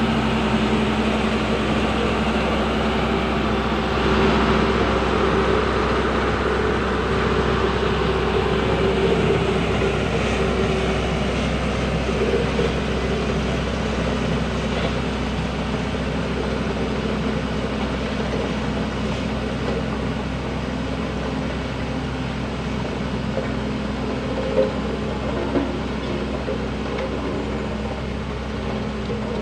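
Diesel engine of a Foton single-drum vibratory roller running steadily, fading slowly as the roller moves away. Two short knocks come near the end.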